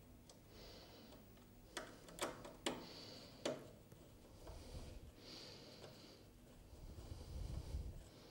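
Faint clicks and scraping of a screwdriver and a small M3 screw being fitted into a metal amplifier chassis, with four sharp clicks in the first few seconds and a low rumble near the end.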